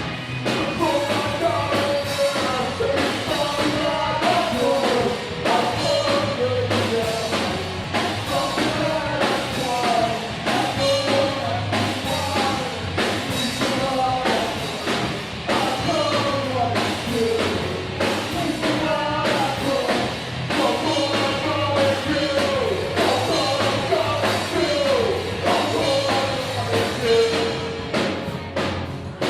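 Rock band playing live: a singer's voice over a steady drum kit beat.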